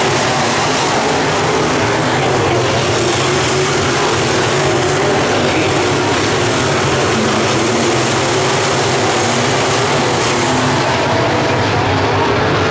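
A pack of dirt-track race cars running at racing speed on a dirt oval, their engines loud and steady, many cars blending into one continuous drone.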